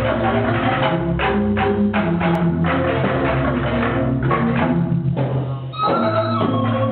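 Balinese gamelan playing live: fast, dense struck notes on bronze metallophones with percussion. The music thins briefly about five and a half seconds in, then comes back with longer ringing notes.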